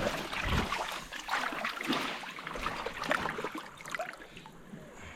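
Water trickling and lapping, with small irregular splashes.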